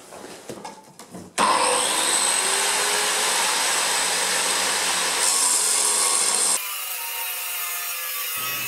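Large angle grinder switched on about a second in, its pitch climbing as it spins up, then running steadily as the disc grinds a ring off a rusty 6 mm-walled steel pipe; the sound changes abruptly, lower and quieter, a little before the end. A few light knocks of handling come before it starts.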